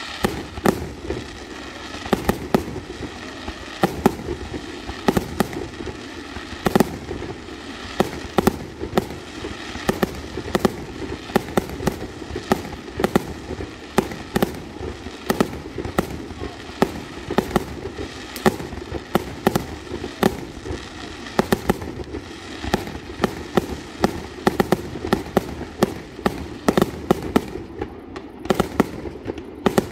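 Large fireworks display: aerial shells bursting in quick, irregular succession, often several bangs a second, over a steady noise beneath them.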